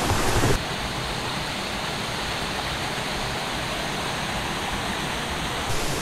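Mountain valley stream rushing steadily. The rush drops a little in level about half a second in.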